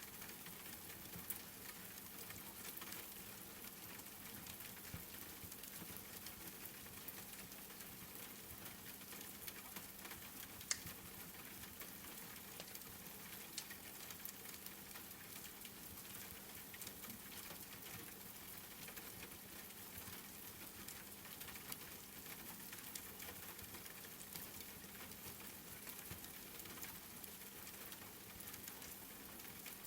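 Steady hiss of rain mixed with the scattered crackles and pops of a wood fire, one pop standing out about eleven seconds in.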